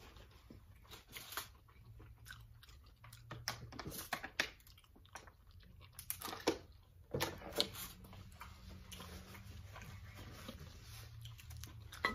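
Close-miked eating sounds: chewing, lip smacks and crunching from a meal of boiled crawfish and fried chicken wings, coming as irregular sharp clicks and crackles.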